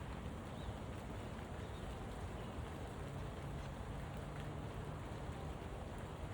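Steady rain falling, an even hiss of drops. A low steady hum joins in for a couple of seconds around the middle.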